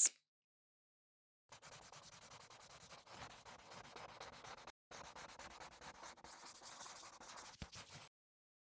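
A pen colouring in on paper, its nib rubbed rapidly back and forth in dense scratchy strokes. The strokes start about a second and a half in, pause briefly near the middle, and stop shortly before the end.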